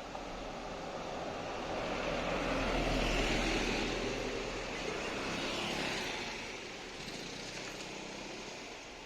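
A motor vehicle passing by, its noise swelling to a peak about three seconds in, swelling again briefly near six seconds, then fading away.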